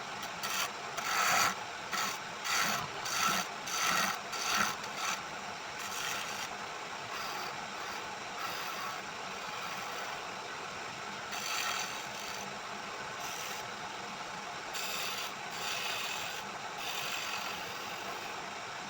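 Repeated scraping strokes on a wooden sickle handle: about seven in quick succession in the first five seconds, then a few more later, over steady machine noise.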